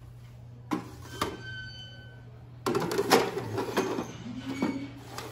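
A ceramic plate clinks down inside a plastic stacking food rack, with a short ringing after it. From under three seconds in, the rack's plastic doors are handled, sliding and clattering against the frame.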